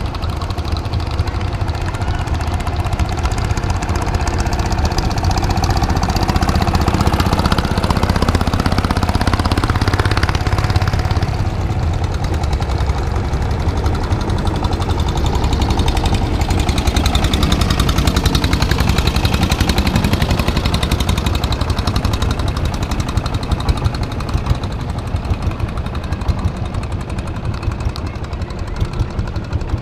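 Longtail boat engine running under way with a loud, rapid knocking.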